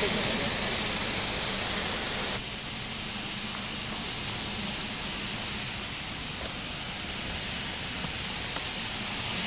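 Steam locomotive standing at a platform, hissing steam. The loud hiss drops suddenly to a quieter steady hiss about two seconds in.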